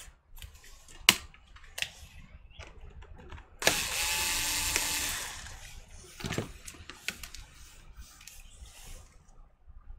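Screwdriver work on the screws holding a laptop's LCD panel: a sharp click about a second in, a second click soon after, then about a second and a half of steady mechanical noise from a little under four seconds in.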